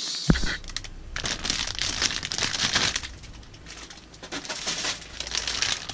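Clear plastic bags around plastic model-kit runners crinkling as they are handled and lifted out of the box, with a sharp click about a third of a second in.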